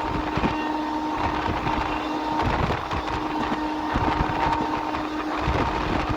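Train horn held in one long steady note over the running noise of a passenger train, with scattered wheel clicks on the rail joints.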